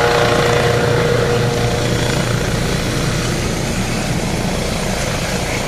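Helicopter hovering low as it comes in to land, its rotor and turbine running steadily. A whine in the engine sound fades out within the first second or two, and the overall level eases slightly.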